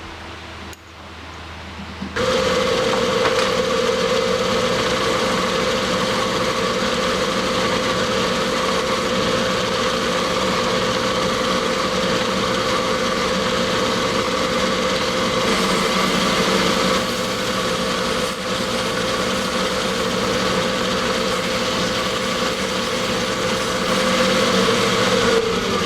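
Metal-cutting bandsaw cutting off a steel handle crank blank: it starts about two seconds in and runs steadily with a constant hum, its pitch sagging a little near the end as the cut loads it.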